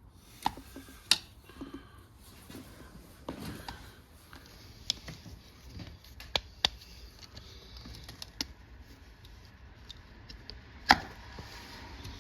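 Scattered clicks and light taps of a small screwdriver and small metal and plastic parts being handled while a cable is worked loose, with one sharp, loud click near the end.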